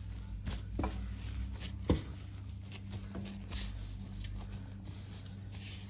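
Hands kneading soft, risen paska yeast dough into flour on a table: soft rubbing and patting with a few dull thumps, the loudest about two seconds in, over a steady low hum.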